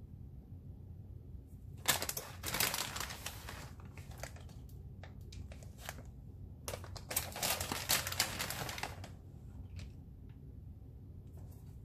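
Plastic bag of shredded cheese crinkling as it is handled, in two bursts: a short one about two seconds in and a longer one a few seconds later.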